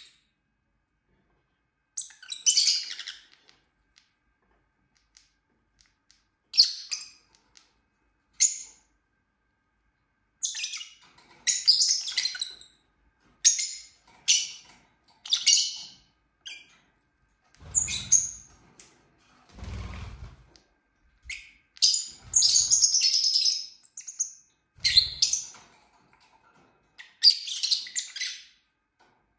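Pet lovebirds chirping in short bursts of high, shrill calls with quiet gaps between, busier from about ten seconds in. A few dull low thumps come in the second half.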